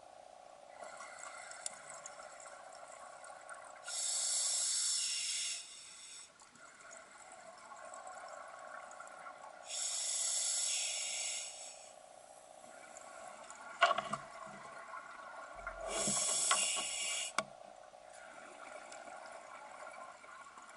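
A scuba diver breathing underwater through an open-circuit regulator: three bursts of exhaled bubbles, each about two seconds long and about six seconds apart. Between them there is a faint steady hum, and a few sharp clicks come about two-thirds of the way through.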